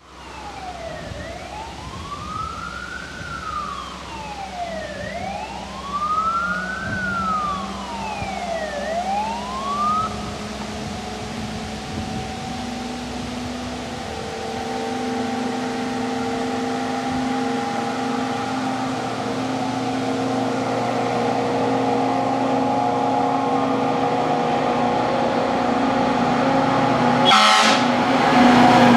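Tatra fire engine's siren wailing, rising and falling slowly about every four seconds for the first ten seconds or so. The siren then stops and the truck's diesel engine grows steadily louder as it approaches, with a brief sharp hiss near the end as it draws level.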